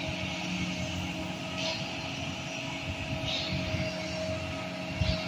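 Cement mixer trucks' diesel engines running steadily, with a steady whine over the drone and a hissing swoosh that repeats about every second and a half. A short thump comes near the end.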